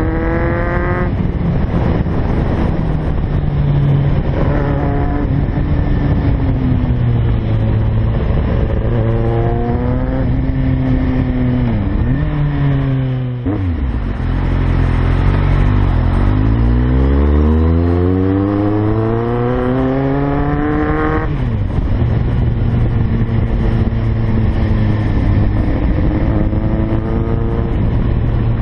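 Kawasaki Z750 motorcycle engine under way: the revs climb and drop back several times as it shifts up through the gears, fall off and dip about halfway through as it slows, then pull up in one long rise before another shift, over a steady rush of wind on the microphone.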